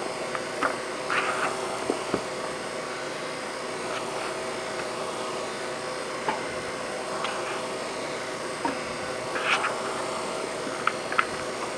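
Hands scooping and pressing raw ground-meat meatloaf mixture into metal loaf pans: scattered soft squelches and a few light clicks, over a steady hum from a machine in the room.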